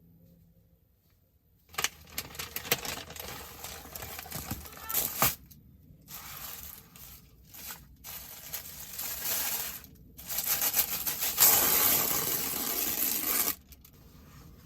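Packaging being handled and opened: bursts of crinkling, rustling and tearing with sharp clicks. They begin about two seconds in, stop and start several times, and are loudest in a long stretch near the end before cutting off.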